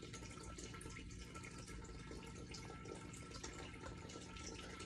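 Turtle tank filter running: water trickles and splashes steadily, with a steady hum under it.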